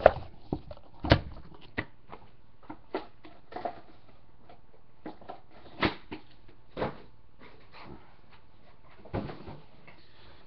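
Irregular knocks, taps and light rustles of things being handled on a desk, beginning with a hand in a cardboard trading-card case box. The sharpest knocks come at the start and about a second in, with a few more spread through the rest.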